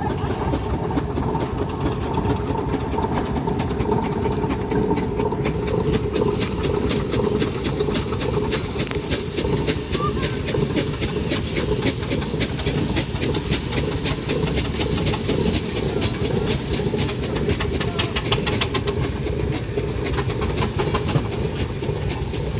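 An engine running steadily, with a rapid, regular ticking beat that comes in a few seconds in and fades near the end.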